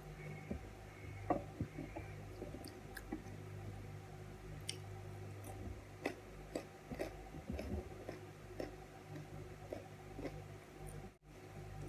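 A person chewing a bite of salami and white cheese close to the microphone, with scattered small mouth clicks. A steady low hum runs underneath.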